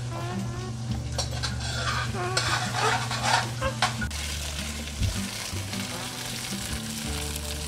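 Onions, bell peppers and jalapeño sautéing in olive oil in a ceramic-lined skillet, sizzling as they are stirred. The utensil scrapes and clatters against the pan over the first few seconds, then the sizzle goes on steadily.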